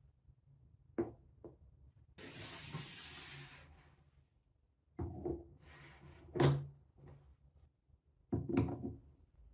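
Wooden marble-run blocks and track pieces being set down and fitted together: a series of sharp wooden knocks and clacks, the loudest about six and a half seconds in. About two seconds in there is a stretch of hissy rustling or scraping lasting about a second and a half.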